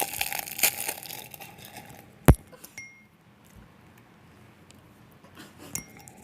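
Plastic snack wrapper crinkling, then a single sharp click a little over two seconds in, followed by a few faint clinks.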